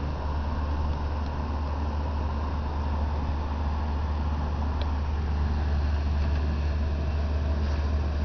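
Vintage Fedders window air conditioner running on its high vent setting, the fan blowing with no cooling: a steady low hum under an even rush of air.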